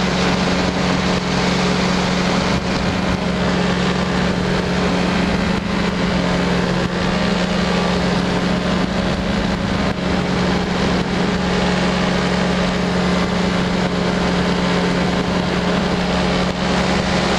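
Powered parachute's engine and propeller running steadily in cruise flight, a constant drone with one strong low tone that does not change.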